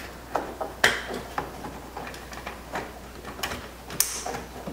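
Plastic clicks and rattles of wiring-harness connectors being handled and plugged into a truck door's power window switch panel, with a sharp click about a second in and another near the end.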